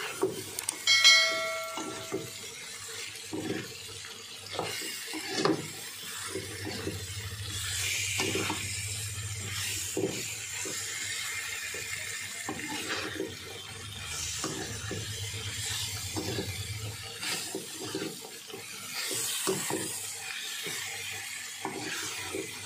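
A metal spatula stirs jengkol (dogfruit) in sambal in a wok, scraping and knocking against the pan again and again while the food sizzles. About a second in, the spatula strikes the wok and it rings briefly; this is the loudest sound.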